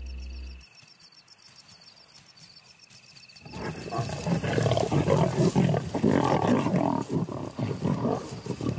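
Lions growling and snarling over a fresh puku kill. The loud, ragged growls start about three and a half seconds in, after a quiet stretch with crickets chirping.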